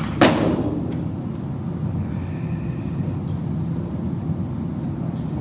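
One loud bang with a short metallic ringing tail from a heavy barbell snatch, as the loaded bar and bumper plates are caught overhead. A steady low rumble follows.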